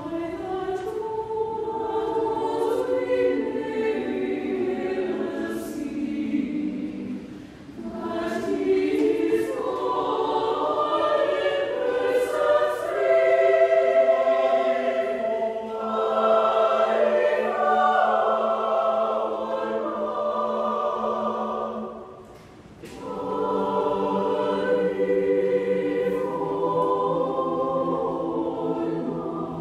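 Mixed choir of men and women singing a cappella, several sustained parts moving together, with two brief breaks between phrases.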